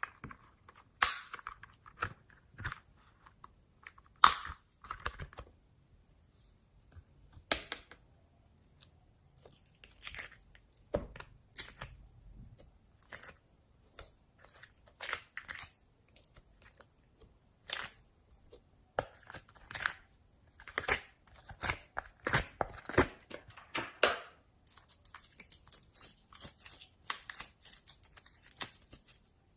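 Slime being squeezed and poked by hand, giving irregular sticky pops and crackles, with a dense run of small crackles near the end.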